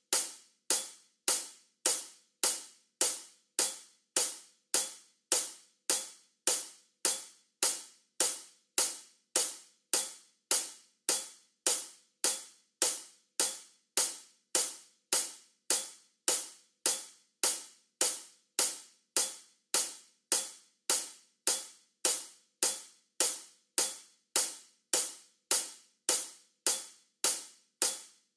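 Hi-hat used as a metronome click at 104 beats per minute, one hit on every quarter note, about 1.7 hits a second. Each hit is short and bright and dies away quickly.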